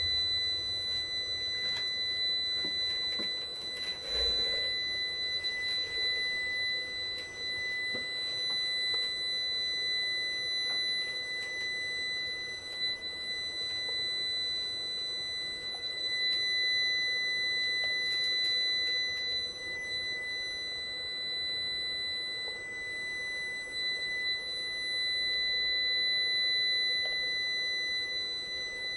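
Steady, unbroken high-pitched electronic tone from the powered inverter board under test, with faint handling clicks as the probe is moved.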